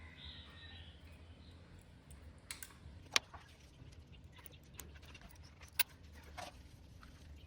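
A steady low hum with irregular sharp clicks and light rattles, the loudest click about three seconds in and another near six seconds.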